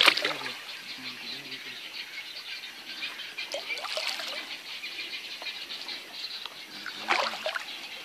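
Water splashing and sloshing in shallow flood water among bushes, loudest at the start and again about seven seconds in, over a steady high-pitched background din.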